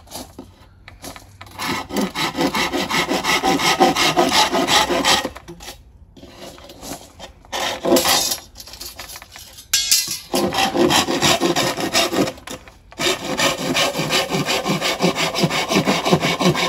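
A hand saw cutting through a thick bamboo stalk with quick back-and-forth strokes, in four bouts with short pauses between them.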